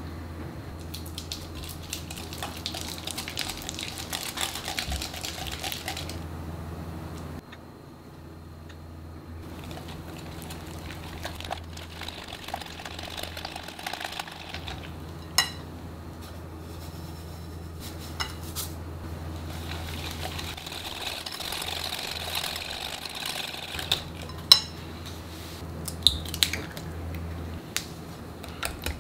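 Wire whisk and spatula working peanut butter cookie batter in a glass mixing bowl: scraping and stirring with several sharp clinks of metal on glass. A steady low hum runs underneath and stops near the end.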